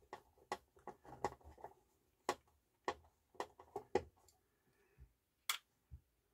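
Small, sharp clicks and taps of fingers and a small screw on the plastic disc carousel of a Yamaha CDC-625 CD changer as the carousel's centre retaining screw is worked loose by hand. The clicks come irregularly, with a sharper click a little after five seconds.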